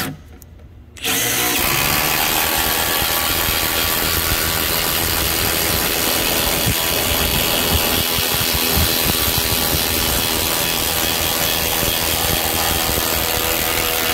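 Milwaukee M18 Fuel impact driver (2953-20) hammering a long lag bolt into a thick wooden block, a short burst at the start and then, from about a second in, one long continuous run of about thirteen seconds that stops abruptly at the end. The driver sinks the bolt all the way without stalling.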